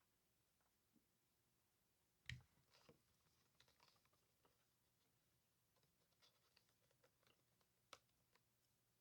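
Faint, sparse clicks from a RoyalAxe mechanical keyboard, with a soft thump a little over two seconds in and a sharper click near the eight-second mark.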